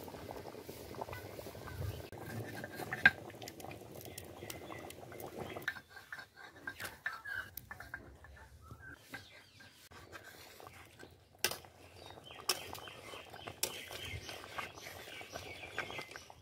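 Chicken curry bubbling at the boil in a metal pan, with sharp clinks of a metal ladle against the pan; the loudest clink comes about three seconds in. The bubbling fades after about six seconds, leaving scattered clinks.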